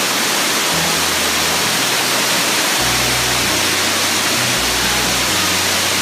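Amicalola Falls pouring down over rock ledges: a loud, steady rush of white water. Under it runs background music of low held bass notes that change every second or so.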